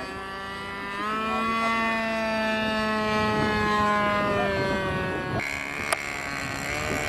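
Radio-controlled flying lawnmower model's engine and propeller droning overhead, the pitch rising about a second in and then sinking slowly as it passes close. A sharp click comes just before the end.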